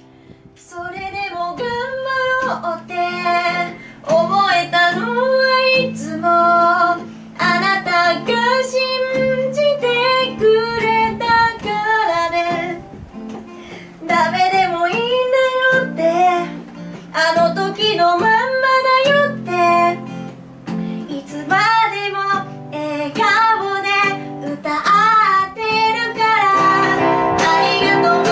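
A woman singing a song live to her own acoustic guitar accompaniment; the voice starts about half a second in.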